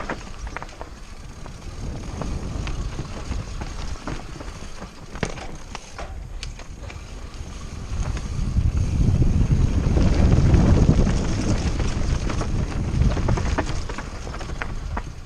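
Wind buffeting the microphone of a mountain bike descending at speed, with the bike rattling over rough ground in scattered clicks and knocks. The wind rumble swells about eight seconds in and eases near the end.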